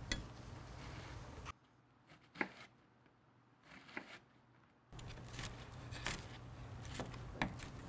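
A chef's knife tapping on a cutting board as an onion is diced: a few separate sharp taps spread out, not a fast run, with a stretch of near silence through the middle.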